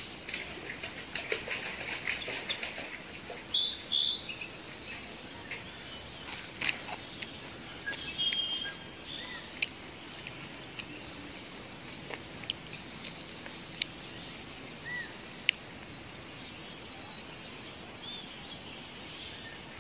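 Birds chirping and calling in short high notes, busiest in the first few seconds and again near the end. Scattered crisp clicks from crunching on deep-fried shrimp.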